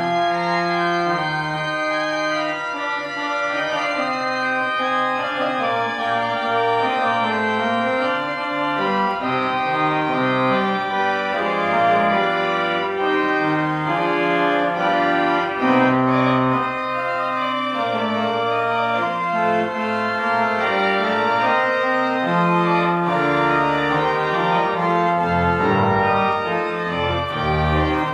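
Organ music: full held chords shifting every second or so over a moving bass line.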